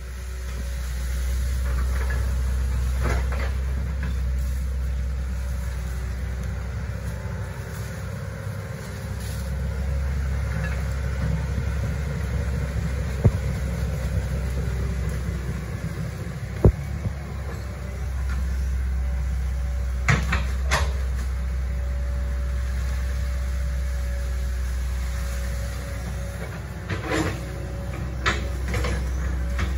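Hitachi ZaXis 110 excavator's diesel engine running steadily with a faint whine over a low rumble, while the machine works. Sharp knocks and clanks come now and then, several together near the end.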